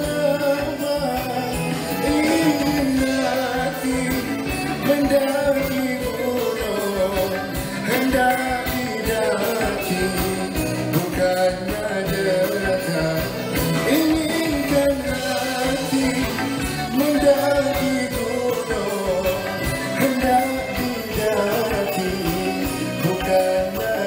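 Live band playing Malay pop-traditional music, with a male voice singing over it.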